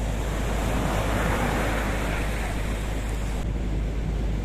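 Storm surf breaking on a beach: a wave swells and crashes about a second in, then washes back, over a steady low rumble. The sound changes abruptly near the end.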